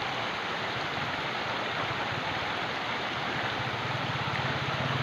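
Shallow creek water rushing steadily over rocks. A low steady hum joins about three and a half seconds in.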